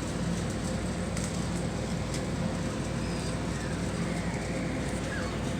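Steady low mechanical hum and hiss, with a few faint, short high chirps near the end.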